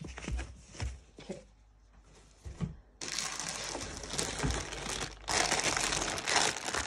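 A few soft thumps and rustles, then from about three seconds in a clear plastic zip bag stuffed with clothing crinkling loudly as it is handled.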